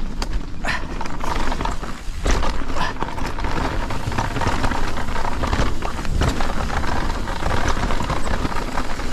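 Mountain bikes on a gravel trail: tyre crunch, rattling knocks from the bikes and a heavy rumble of wind on the microphone.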